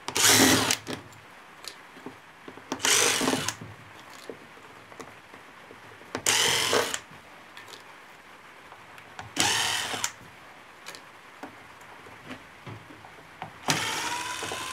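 Cordless driver running in five short bursts as it backs screws out of a plastic housing panel. The last burst is the longest, with the motor's whine swelling and falling.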